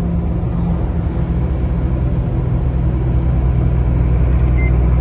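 Truck cab interior while driving on dry asphalt: a steady low drone of engine and road noise that slowly grows louder. A short high beep sounds near the end.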